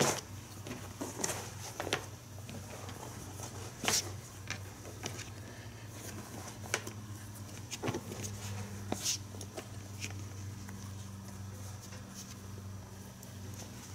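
Coat fabric being handled and shifted, rustling, with scattered light clicks as plastic sewing clips are opened and moved along the seam edge. A low steady hum runs underneath.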